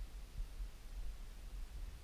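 Quiet outdoor background: a faint, unsteady low rumble with no distinct sound in it.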